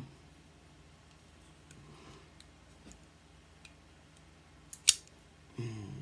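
QSP QS110 Nokomis folding pocket knife being handled: a few faint ticks, then one sharp metallic click about five seconds in as the blade swings open and locks.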